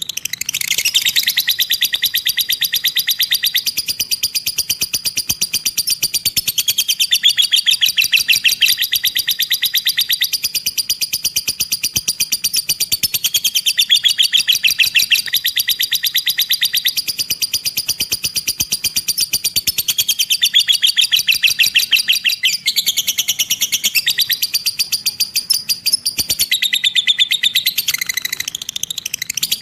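Lovebird 'ekek' (ngekek): a long, very rapid high chattering trill that runs on without a break, swelling and easing every few seconds.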